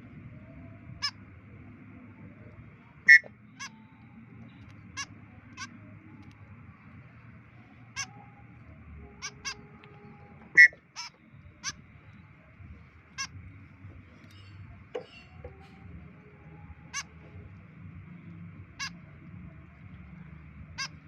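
White-breasted woodswallow (kekep babi) giving short, sharp single calls at irregular intervals, about fifteen in all, two of them much louder than the rest, over a low steady background rumble.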